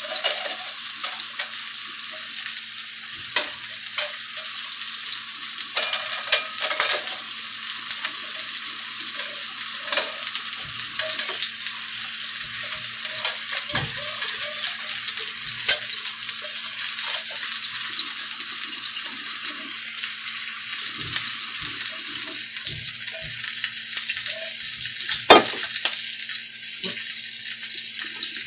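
Ground-beef meatballs sizzling in hot oil in a cast-iron skillet: a steady high hiss with scattered crackles and a few sharper pops.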